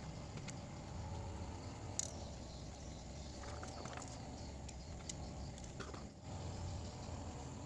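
Small clicks and light scraping from handling a phone and its parts during a screen replacement, with one sharper click about two seconds in, over a steady low hum.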